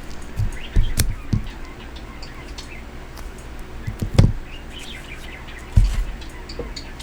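Pet birds chirping softly in short calls, with a few sharp knocks and thuds of objects being handled: about a second in, around four seconds in, and near six seconds.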